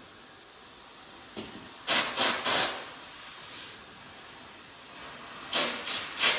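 Compressed air hissing in short bursts: three quick blasts about two seconds in, then three more near the end.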